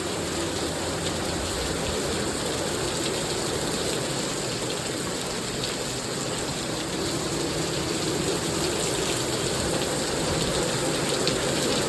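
Heavy rain pouring down and pattering on surfaces in a steady, even rush.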